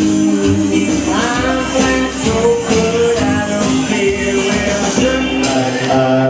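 Live music played through a PA: a man singing into a microphone over a backing accompaniment.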